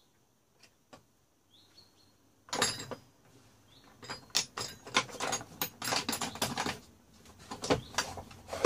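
Homemade steel socket wrenches and handle bars clinking and clattering against each other and the wooden box as they are set into it: a quick run of clicks starting about two and a half seconds in, with a louder cluster near the end.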